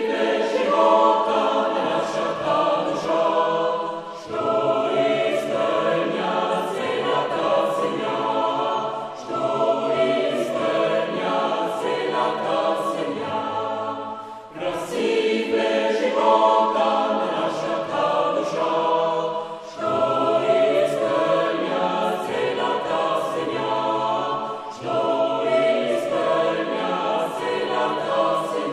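A choir singing in long held phrases, each about five seconds, with a short break between them.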